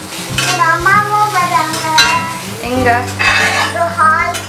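A young child's voice talking in a high pitch, in short, changing phrases, over a steady low hum.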